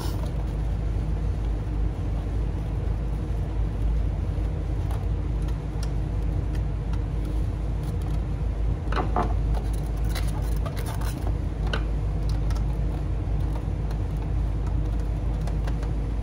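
Steady low rumble of a home furnace running, with a few brief scrapes and squeaks around the middle as a screwdriver works a screw out through a styrofoam box base.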